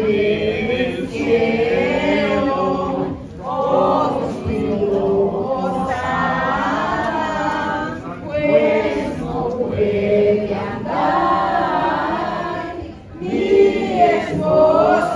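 A group of voices singing together without instruments, in phrases a few seconds long separated by short breaks: a posada hymn.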